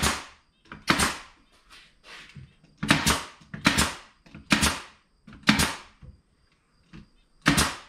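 Pneumatic brad nailer firing brads into the glued corner joints of a wooden beehive box: about seven sharp shots at irregular intervals of roughly a second, with a few fainter clicks between.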